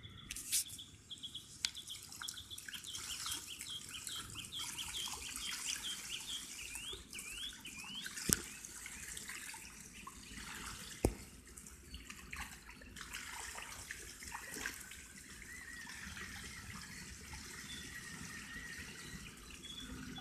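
Water sloshing and splashing as the soft rim of a backyard pool is pressed down and water spills over the edge onto concrete, with a few sharp clicks along the way.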